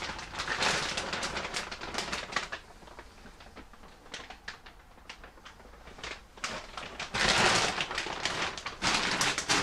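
Footsteps crunching over debris on a ship's deck: bursts of dense crackling clicks, with a louder scuffing rush about seven seconds in.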